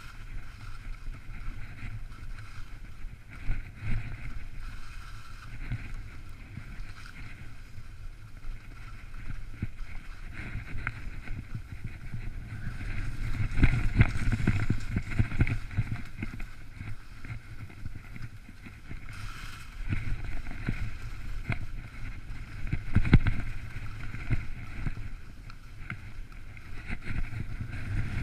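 Skis sliding and scraping over hard, wind-ridged snow crust, with irregular knocks and clatter as they ride over the ridges, louder about halfway through and again near the end. Wind buffets the microphone.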